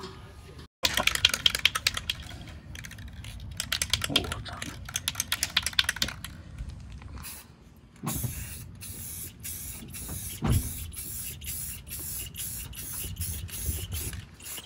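Aerosol can of black high-heat spray paint hissing in a quick run of short sprays in the second half. Earlier come two loud bouts of fast scratchy strokes.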